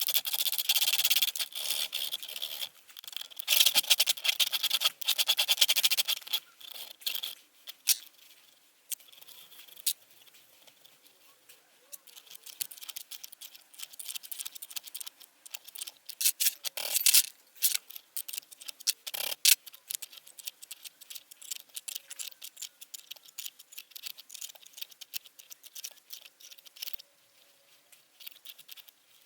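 Hand file rasping on a finger of an Atlas 10 lathe's fixed steady, filing back burrs so the stiff finger can be withdrawn. Steady back-and-forth strokes for the first several seconds, then sparser scratching and scraping, with a couple of sharper strokes in the second half.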